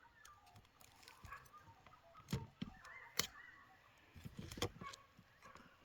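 A few sharp knocks, the loudest about three seconds in, over faint distant dog barking.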